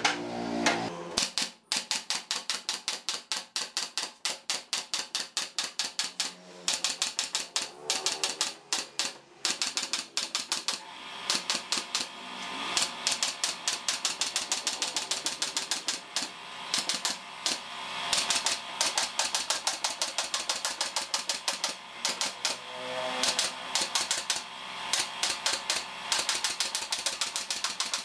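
Pneumatic nail gun firing in rapid runs, several shots a second with short pauses, driving nails through thin pallet-wood slats into the frame beneath. The nailing starts about a second and a half in.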